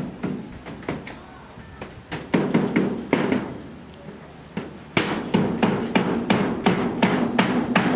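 Hammer blows during roof work: scattered strikes at first, then a steady run of about three strikes a second from about five seconds in.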